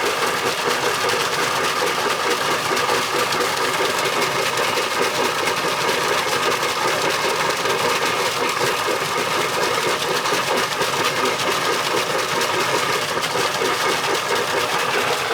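Borewell air compressor running steadily with a fast, even mechanical rhythm, driving the compressor foot valve that lifts water up the bore.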